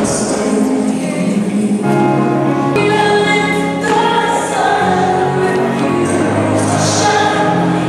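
Music with singing: a song with long held vocal notes over steady accompaniment.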